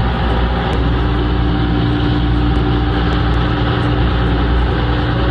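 Fishing boat's engine running steadily underway, a constant drone, with the hiss of the wake rushing along the hull.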